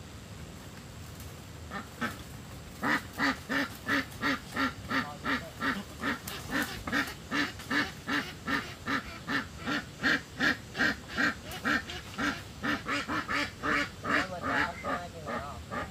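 Domestic duck quacking over and over in a regular rhythm, about two to three quacks a second, starting about two seconds in.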